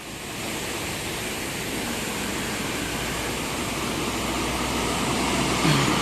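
Rushing of a fast river in the ravine below the road: a steady, loud wash of water noise. A low rumble builds slowly toward the end.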